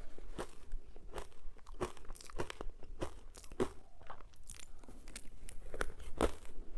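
Ice being bitten and chewed close to the microphone: irregular sharp crunches, a few each second.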